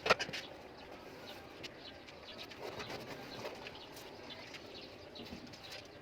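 A sharp knock just after the start, then birds calling faintly and unevenly in the background.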